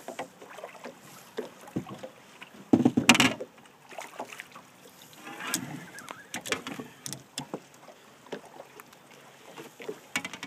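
Small boat with water lapping at the hull, and scattered knocks and rustles as a smallmouth bass is landed and handled; one loud thump about three seconds in.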